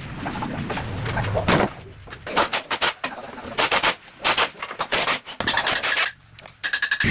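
A series of short, irregular scraping strokes by hand, starting about two seconds in, typical of sanding or scraping during bodywork restoration.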